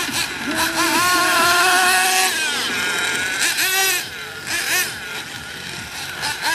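RC truggy's motor revving with the throttle, a high-pitched whine that holds for about two seconds, drops, then rises in short blips twice more.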